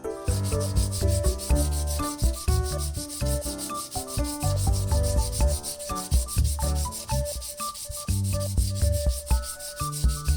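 Fast, even rubbing strokes like sanding, mixed with background music whose bass notes step up and down.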